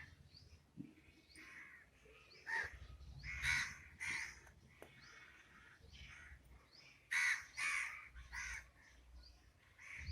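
Crows cawing in the background: harsh caws in two bunches, one a couple of seconds in and another about seven seconds in, with faint short high chirps between them.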